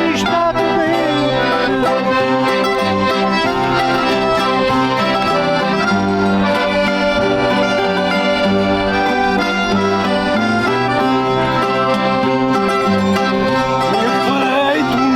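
Accordion playing a traditional folk tune with plucked string instruments accompanying, held notes sounding continuously.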